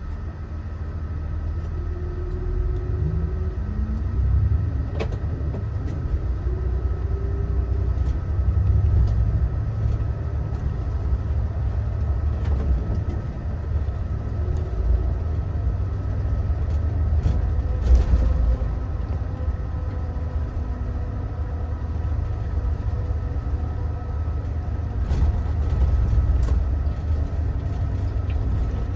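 Mitsubishi Fuso Aero Ace bus under way, heard from inside: its diesel engine and road noise make a steady low rumble. The engine pitch climbs a few seconds in as the bus accelerates, and there are a couple of sharp knocks from bumps or rattles, the loudest about eighteen seconds in.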